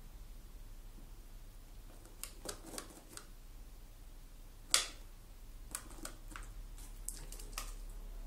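Scattered light clicks and taps as a ferret paws and clambers at the rim of a plastic water basin on a hard floor, with one sharper knock a little under five seconds in.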